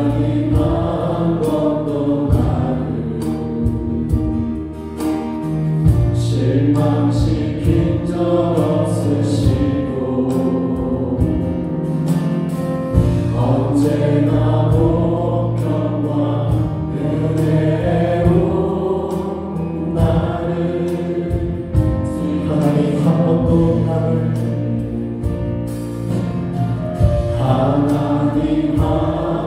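Church worship band playing gospel music: Yamaha Montage 8 keyboard, drums and bass guitar with steady drum hits, under many voices together.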